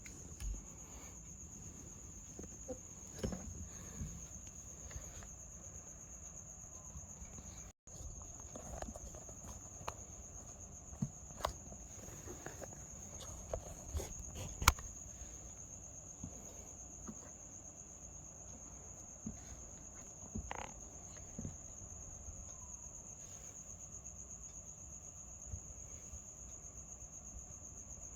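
Crickets chirring in a steady, continuous high trill, with scattered soft knocks and taps; the sharpest tap comes about halfway through.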